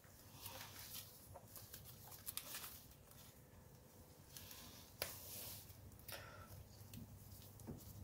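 Faint rustling and small clicks of gloved hands peeling the backing strip off adhesive-backed B-pillar piping and pressing it onto the seam, with a sharper click about five seconds in, over a faint low hum.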